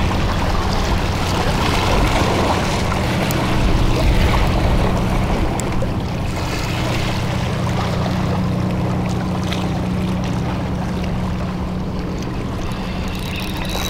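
Steady low engine hum over sea water washing against rocks.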